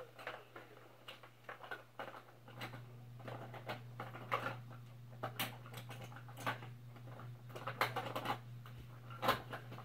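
Irregular small clicks, taps and rustles of objects being handled and rummaged through, over a steady low hum.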